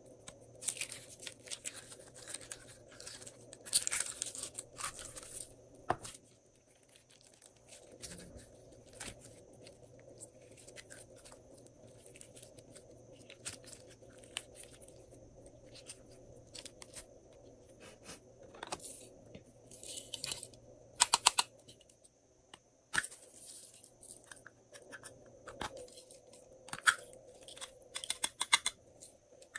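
Glossy slime being worked and squeezed by hand: irregular sticky clicks, crackles and snaps in bunches, with quieter stretches between, over a faint steady hum.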